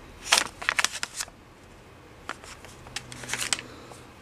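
Plastic cosmetic packaging being handled: a face-mask sachet and a clear plastic blister tray crinkling and clicking in two short clusters, about half a second in and again about three seconds in.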